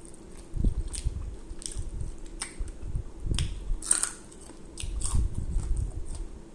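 A person biting and chewing fried chicken close to the microphone, with a string of sharp, wet mouth clicks.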